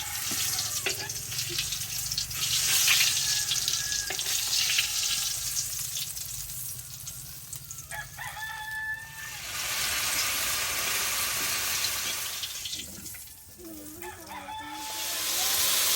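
A rooster crowing twice, about halfway through and again near the end, over a steady hiss.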